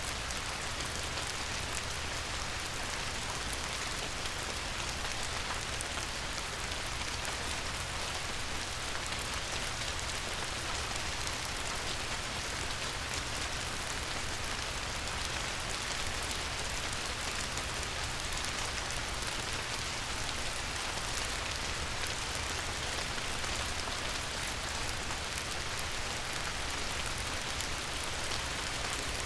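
Light rain falling steadily: an even hiss of countless small drop ticks, with no change in strength.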